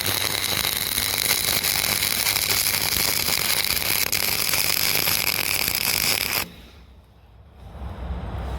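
MIG welder arc crackling steadily through a test weld, then cutting off suddenly about six and a half seconds in.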